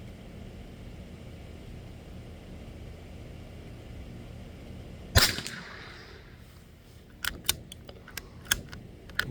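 .22 LR rifle firing a single shot about five seconds in. A string of short, sharp clicks follows from the rifle's action being worked, with the magazine now empty.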